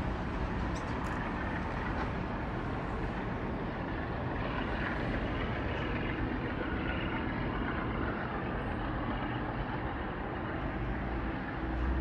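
Steady rumble of a double-deck train rolling away along the track.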